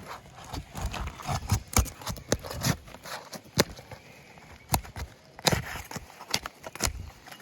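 Irregular sharp clicks, knocks and scrapes of a metal pry tool working under old asphalt shingles to pop up roofing nails, whose heads pull right through the brittle, deteriorated shingle.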